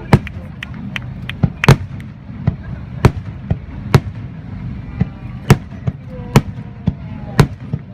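Fireworks bursting overhead: a run of sharp bangs at irregular intervals, about two a second, over a low rumble.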